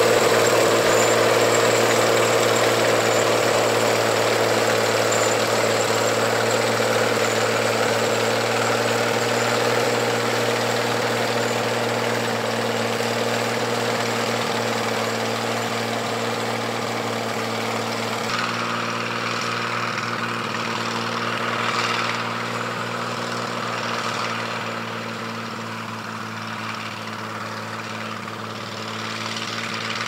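1959 John Deere 95 combine running as it harvests wheat: a steady engine note with the hum of its threshing and straw-spreading machinery. It slowly grows fainter as the combine moves away, and the tone shifts about two-thirds of the way through.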